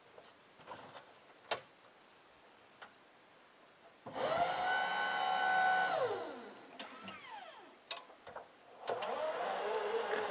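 Electric hydraulic pump of a solar electric tractor's front loader whining as the bucket is raised: it rises quickly to a steady pitch, holds for about two seconds, then winds down. About nine seconds in, a second electric whine starts and climbs slowly in pitch as the tractor's electric drive motor pulls away.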